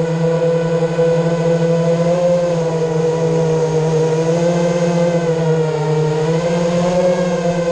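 Eachine Wizard X220 racing quadcopter's brushless motors and propellers whining steadily and loudly, the pitch wavering slightly with throttle and dipping briefly about six seconds in before rising again.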